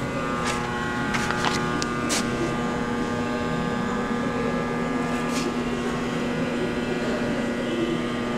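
Steady machinery hum with a constant low tone, and a few light clicks and knocks in the first two seconds and again about five seconds in.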